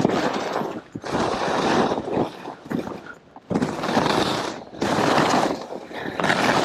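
Backcountry skis scraping and hissing through snow on a downhill run, in bursts of about a second with each turn and short lulls between.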